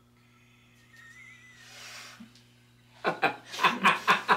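A man laughing loudly in quick repeated pulses, starting about three seconds in.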